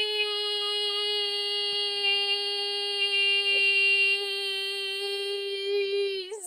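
A woman's voice holding one long, high, steady note, an open-mouthed "eee", that wobbles and breaks off near the end.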